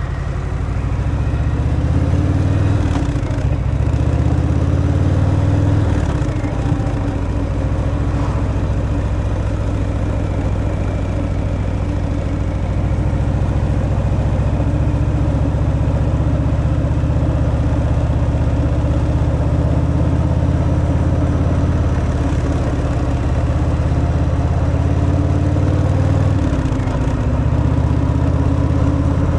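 Harley-Davidson Fat Boy's air-cooled V-twin running through the stock exhaust while riding, a steady deep engine note. Its pitch dips and comes back up briefly a few seconds in and again near the end.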